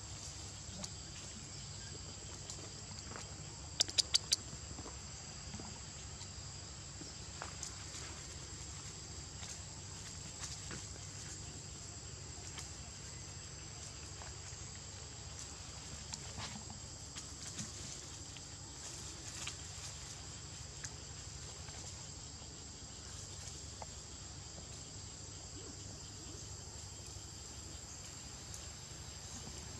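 Steady insect chorus, a continuous high buzz at two pitches, with scattered faint ticks and rustles. A quick run of four sharp clicks comes about four seconds in.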